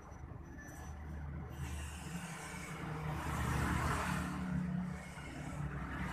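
Motor vehicle engine noise in the background: a steady low rumble, with an engine swelling louder about halfway through and fading again.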